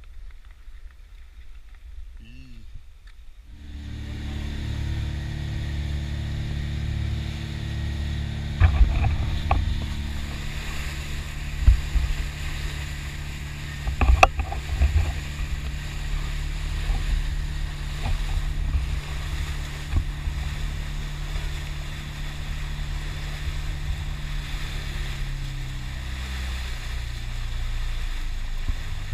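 A boat's engine drones steadily under a rush of water along the hull, with a few sharp knocks. The drone comes in about four seconds in and drops in pitch near the end.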